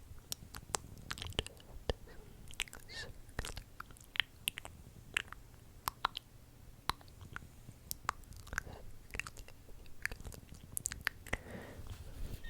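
Close-miked ASMR mouth sounds: an irregular run of wet clicks and smacks from the tongue and lips.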